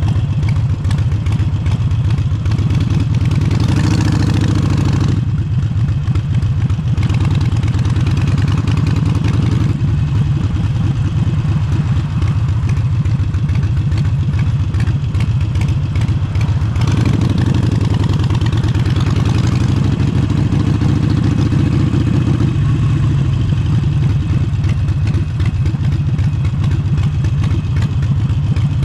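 Harley-Davidson Forty-Eight's air-cooled V-twin with an aftermarket Vance & Hines exhaust running loud and steady, its throttle opened and eased off several times, with a sharp drop about five seconds in and another near twenty-two seconds.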